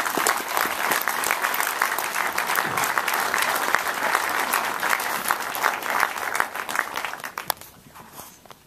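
Audience applauding: a dense, steady clapping of many hands that dies away about a second before the end.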